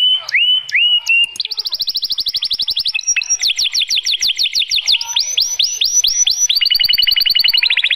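White canary singing a male's courtship song, loud and unbroken: a few short upswept notes, then a fast trill of repeated notes, a slower run of falling whistled notes in the middle, and another fast trill near the end.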